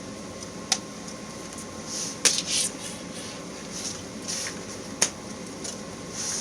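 A metal belt plate and leather strap being handled and fitted together: three sharp clicks or taps with short bursts of rustling and scraping between them.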